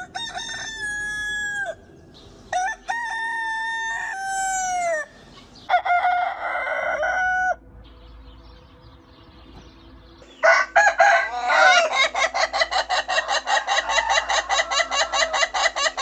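Roosters crowing: two long pitched crows that drop in pitch at the end, then a harsher, rougher crow. About ten seconds in, a fast, even run of clucking pulses sets in, about six a second, and carries on to the end.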